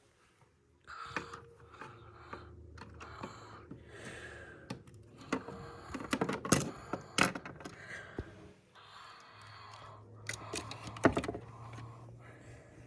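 Small plastic clicks, taps and rustles of Sylvanian Families figures and toy furniture being handled and moved about, with several sharper knocks around the middle and again near the end.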